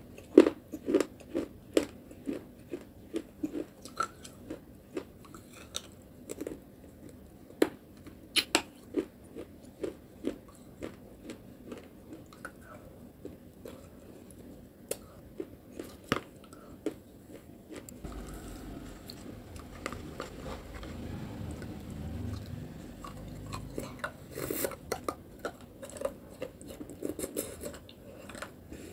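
Close-up chewing and biting of soft wet clay paste, with many short, sharp crunches. Partway through, the crunching pauses for several seconds under a low rumble, then the crunching resumes.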